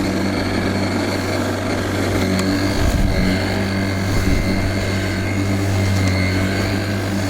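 Cordless battery lawnmower with a 40 cm cut running on its turbo setting while being pushed through damp grass: a steady electric motor hum with a faint high whine.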